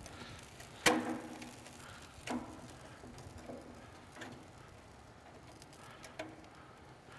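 A handful of sharp metallic clicks and clanks, spaced a second or two apart and the loudest about a second in, as a stainless Lynx rotisserie basket of chicken wings is handled on the grill's spit.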